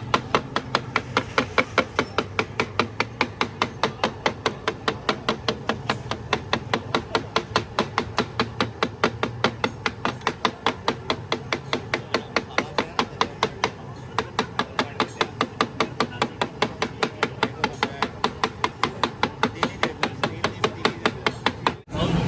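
A cook's utensil striking steadily and rapidly, about three to four sharp clacks a second, over a low background hum; the strikes stop abruptly near the end, giving way to street noise.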